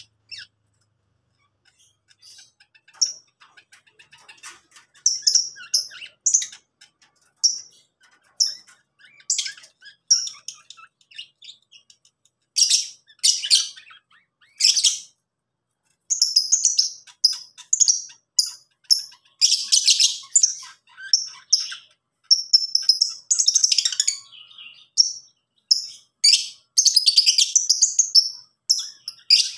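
Lovebirds chirping and chattering: many short, high-pitched chirps, sparse at first and nearly continuous over the second half.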